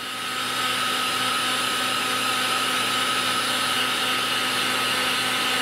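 Wagner hot air gun running steadily, its fan blowing with a steady whine, heating heat-shrink tubing on a crimped wire terminal.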